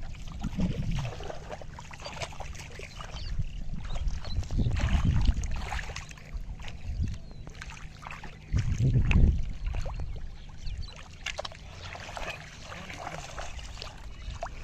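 Feet wading and splashing through shallow water in a flooded rice paddy, with irregular small splashes throughout. Heavy low rumbles of wind on the microphone come and go, loudest about nine seconds in.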